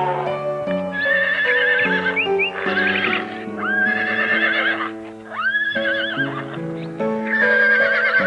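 A horse whinnying several times, each call a quavering, wavering cry about a second long, over background music with held notes.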